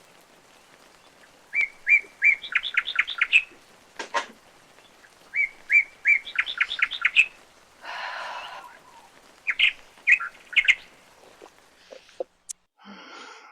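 A songbird singing the same phrase three times, about four seconds apart: a few short whistled notes followed by a quick run of notes. Near the middle there is a brief rush of noise.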